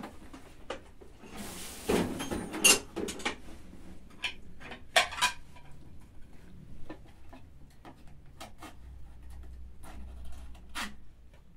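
Irregular knocks, clicks and clatter of objects being handled, with a louder burst of rattling about two to three seconds in and another sharp knock about five seconds in.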